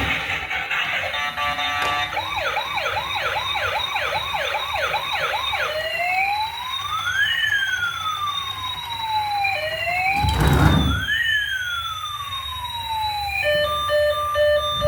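Toy emergency vehicle's electronic siren: a fast yelp of about two rising sweeps a second, then a slower rising-and-falling wail, then evenly pulsed beeping near the end. A single thump sounds about two-thirds of the way through.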